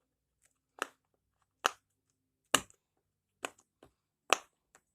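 Silicone dinosaur pop-it fidget toy having its bubbles pressed through: five sharp pops, evenly spaced about once a second.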